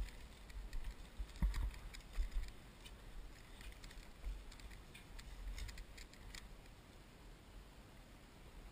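Footsteps on a dirt track with the clink and rattle of carried tactical gear, over a low rumble of wind on the microphone; a few louder thumps, the strongest about a second and a half in.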